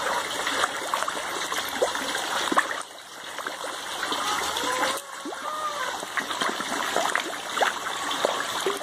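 Water pouring from a pipe into an aquaponics fish tank, a steady splashing and trickling with many small splashes.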